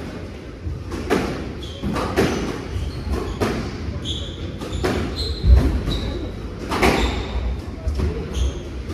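A squash rally: the ball is smacked by the rackets and hits the walls in sharp, irregular strikes, about one a second, with sneakers squeaking on the wooden court floor between shots.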